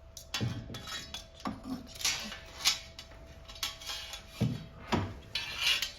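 Irregular clattering and knocks of a dehumidifier's removed air inlet grille and filter being handled.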